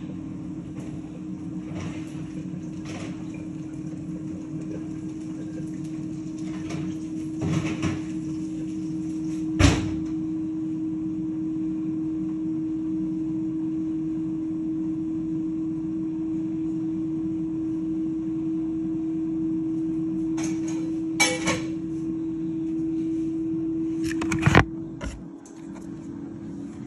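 Air fryer running with a steady hum, broken by a few sharp knocks and clicks. Near the end the recording phone is picked up and handled.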